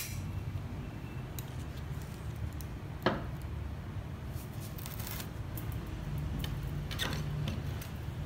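Hands wiring a bonsai tree: leaves rustling and bonsai wire being bent and handled, with a sharp click at the start and another about three seconds in, over a steady low hum.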